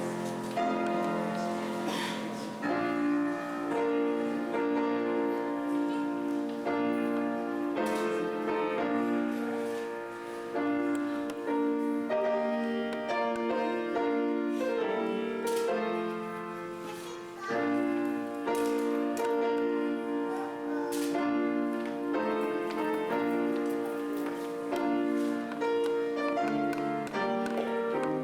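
Slow classical music on a keyboard instrument, chords held for a second or two and then changing: wedding prelude music in a large hall.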